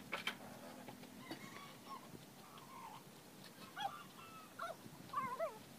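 A few short animal cries with a wavering pitch, several in quick succession near the end, over a couple of light knocks of bamboo sticks being handled in the first second or so.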